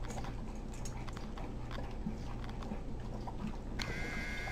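Collie–wolf cross dog eating, a run of small irregular clicks and clinks from chewing and the food bowl over a steady low hum. Near the end a steady high tone starts.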